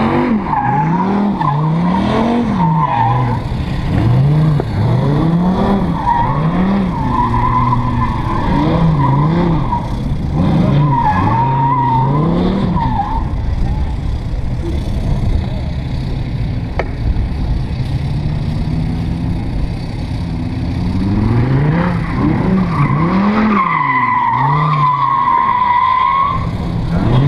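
Drift car engine revving up and dropping back again and again as the throttle is worked, with tyres squealing in wavering stretches several times, the longest near the end as the car slides around the course.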